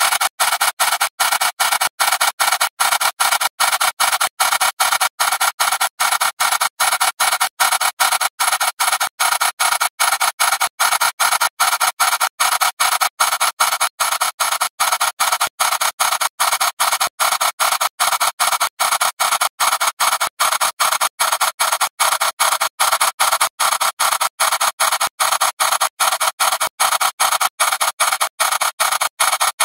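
Harsh, tinny digital noise from a video's soundtrack destroyed by thousands of repeated re-exports. It stutters in and out steadily, about three times a second.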